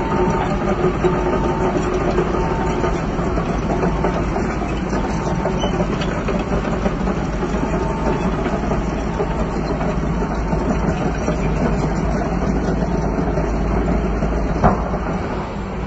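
Heavy diesel machine engine running steadily, with a reversing alarm beeping repeatedly through the first half. One sharp knock near the end.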